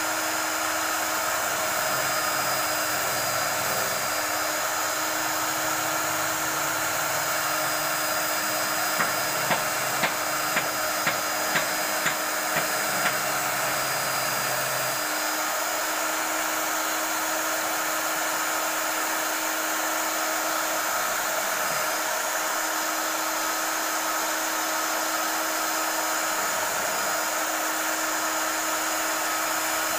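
Electric belt sander, mounted upside down as a bench sander, running steadily with a steady motor whine and the rasp of the belt as a curved wooden piece is sanded on it. There is a quick run of light taps about ten seconds in.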